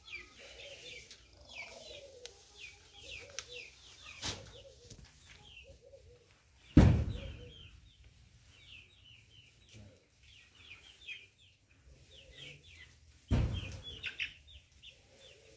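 Poultry chirping steadily with many short, falling high calls, broken by a few sharp knocks: the loudest about seven seconds in, another near four seconds and one near the end.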